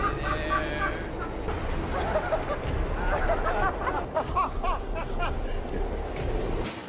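Voices talking and chuckling over a steady low rumble, which stops just before the end.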